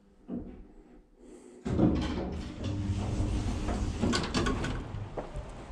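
Stainless-steel lift doors sliding open: a small thump, then, about a second and a half in, a sudden rumbling slide with rattling clicks that lasts several seconds and eases off near the end.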